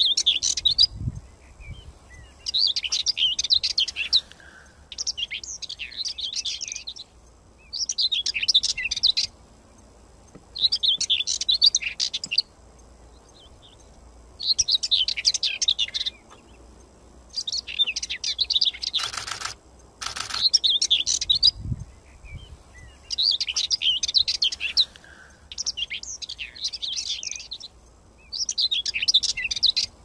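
Songbird singing in repeated phrases of rapid high chirps and trills, each about one to two seconds long, with short pauses between. Two brief loud bursts of noise come about two-thirds through, with a low thump just after.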